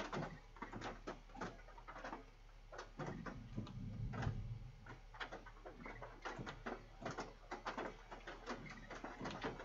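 Precipitation striking the vehicle's roof and windshield, heard from inside as many irregular rapid taps and ticks, with a low rumble about three to five seconds in.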